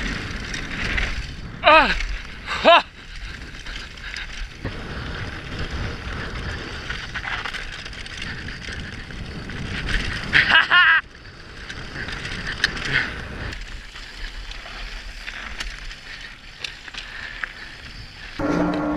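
Mountain bike riding fast downhill on a dirt singletrack: tyre and frame rattle under a steady rush of wind on the camera microphone. Two short, high, falling calls come about two seconds in, and a louder wavering call about ten seconds in.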